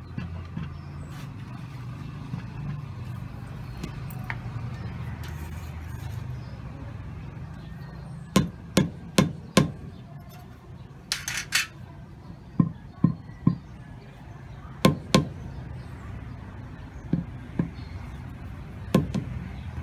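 Rubber mallet knocking an AAC lightweight concrete block to bed and align it on its mortar, in short runs of two to four blows starting about eight seconds in, over a low steady rumble.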